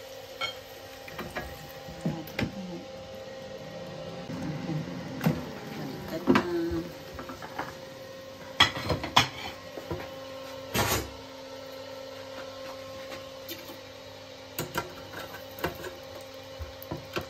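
A basting brush dabbing and scraping sauce onto a chicken in an air fryer basket, then a run of sharp knocks and clatter as the basket and metal tongs are handled, loudest around the middle. A steady mechanical hum runs underneath.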